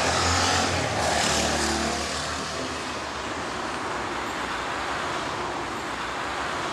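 Road traffic: a motor vehicle's engine hum, loudest in the first two seconds and fading as it passes, over a steady wash of traffic noise.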